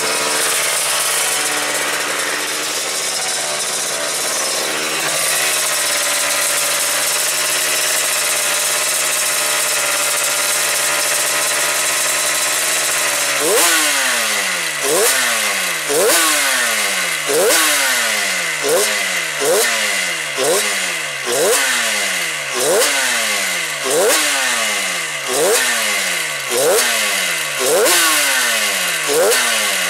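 Yamaha TZ two-stroke racing engine running on its first run-up after a rebuild. It runs at a steady speed for about the first thirteen seconds, then the throttle is blipped about once a second, each blip rising sharply and falling back.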